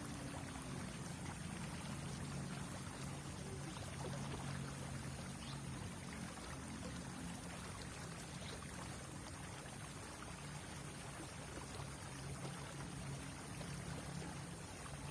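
River water running steadily over a shallow bed, with a low steady hum underneath.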